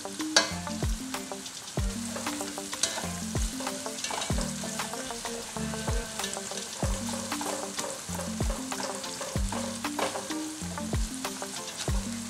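Sliced onions sizzling as they fry in hot oil in a pot, with a spoon stirring and scraping through them, over background music with a steady beat.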